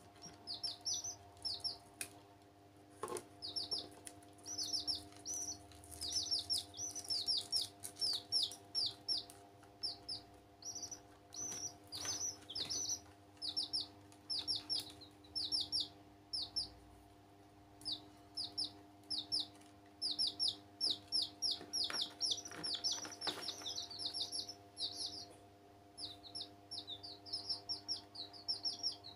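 Baby chicks peeping continuously: short, high cheeps that fall in pitch, coming in quick runs of several at a time.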